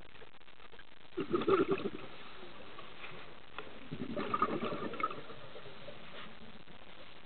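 Scuba regulator exhaust bubbles heard underwater: two bubbly bursts of exhalation, the first short and the second longer, about three seconds apart, over a steady faint hiss.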